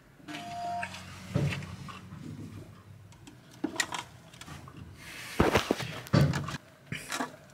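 Handling noises from a bilge pump being pressed down by its Velcro base onto the floor of an aluminum boat: scattered knocks and rubbing, with the loudest thumps about five and a half and six seconds in.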